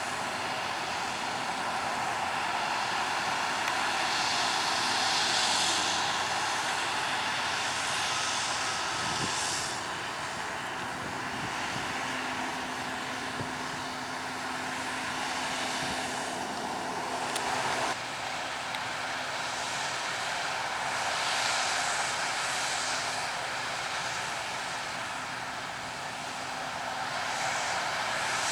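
Claas Lexion 750 combine harvester working in wheat: a steady engine and threshing drone that swells and fades a few times, changing abruptly about two-thirds of the way through.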